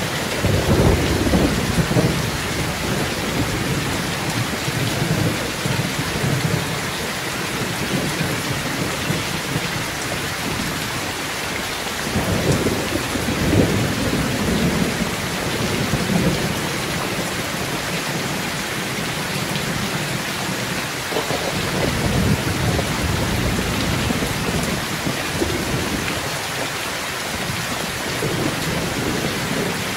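Heavy rain pouring steadily in a thunderstorm, with low rolls of thunder rumbling in and out several times: about a second in, around halfway, and again later on.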